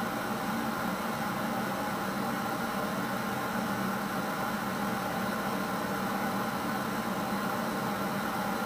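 Steady hiss with a low hum that does not change: the background noise of the room and recorder, with no distinct sound standing out.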